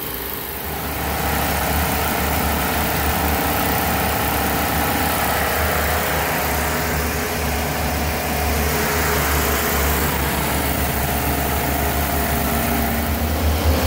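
Crusader 454 big-block V8 marine engine running hard: the sound swells about a second in and then holds steady at raised revs. It is being run up toward 4,000 RPM, the speed at which it has been cutting out when the fuel-pump relay loses its signal.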